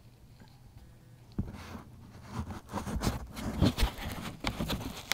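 Puppy scrabbling and chewing among paper magazines and a slippered foot: irregular rustling, scratching and knocks starting about a second and a half in, mixed with handling noise as the camera is moved.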